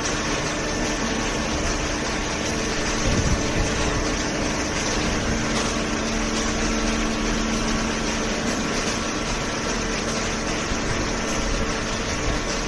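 Steady mechanical hum and whir of a running machine, with a few steady tones held throughout and a new lower tone coming in about five seconds in.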